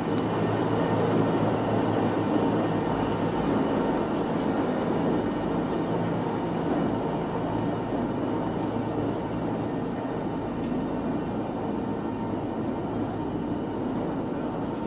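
Epiroc Minetruck MT42 SG battery-electric mine truck driving away: a steady low rumble with a faint hum, slowly fading.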